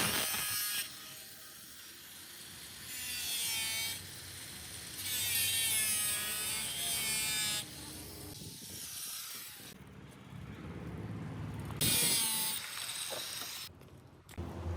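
Power tools working on the metal of a rusty car door, heard in short bursts that start and stop abruptly, some with a wavering high whine.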